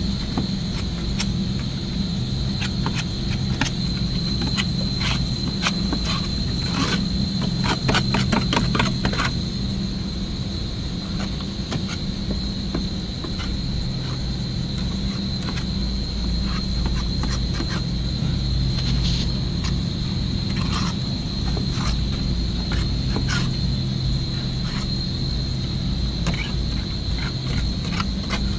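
Steel putty knife scraping slime and sludge along the wet drain pan of a refrigerated produce case, in scattered short strokes with a quick run of them about seven to nine seconds in, clearing the slime that plugged the drain. Underneath, a steady low hum and a steady high-pitched tone.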